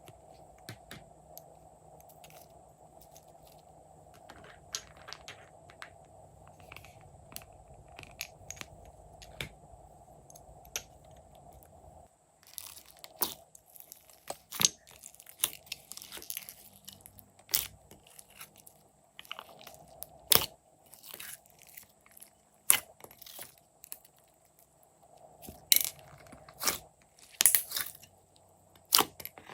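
Glossy slime being mixed and kneaded: irregular sticky crackles and air-bubble pops, growing louder and more frequent about twelve seconds in, over a faint steady hum that drops away at that point.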